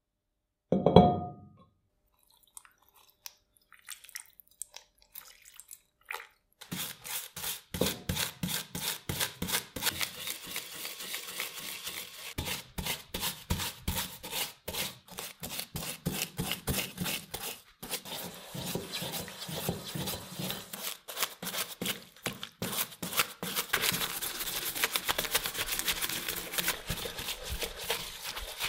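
A metal saw tooth setter housing set down in a glass bowl with a single ringing clunk about a second in. Then a stiff-bristled brush scrubs it in cleaning liquid, in quick, rapid strokes.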